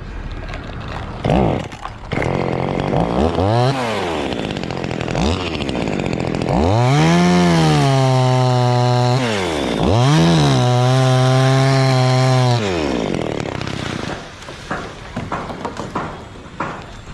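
Two-stroke chainsaw revved in several short blips, then held at full throttle twice for a couple of seconds each before dropping back to idle. Scattered clicks and knocks follow near the end.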